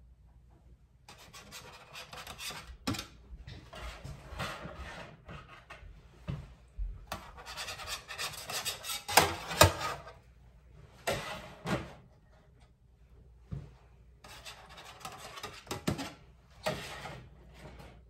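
A utensil scraping against baking pans in irregular bursts as cooked meatballs are moved into a hotel pan, with a couple of sharp knocks about halfway through.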